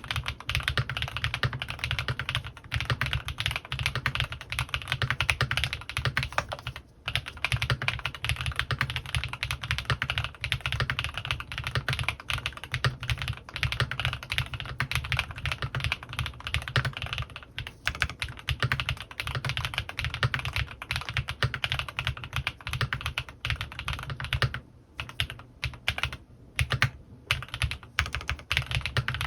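Custom CannonKeys Rekt1800 mechanical keyboard typed on fast and continuously, its lubed Gateron Pure Berry switches and PBT keycaps clacking in a dense run of keystrokes. The typing breaks off briefly about seven seconds in and a few times near the end.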